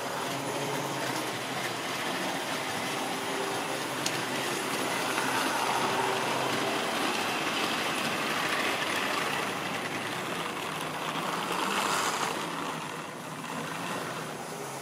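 OO-gauge model train of vans with a Class 90 electric locomotive running past on the layout's track, with a steady rattling run of wheels and motor. It grows louder about five seconds in, is loudest about twelve seconds in as it passes close, then briefly drops away.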